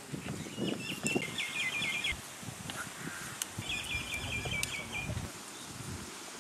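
A songbird sings two short phrases of quick repeated chirping notes, each lasting about a second and a half, a couple of seconds apart. Low handling sounds and a few light knocks sit underneath.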